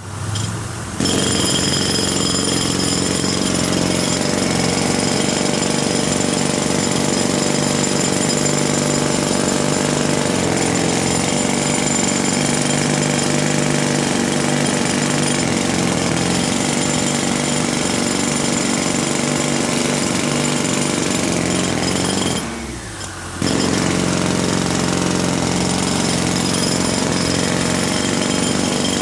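Pneumatic jackhammer running with a loud, steady hammering. It starts about a second in, stops for about a second some 22 seconds in, then starts again.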